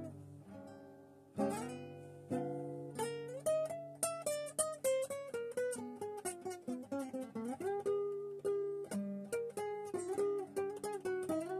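Solo acoustic guitar playing an instrumental rag. A couple of ringing chords over a held bass note give way, about three seconds in, to a fast run of single plucked notes.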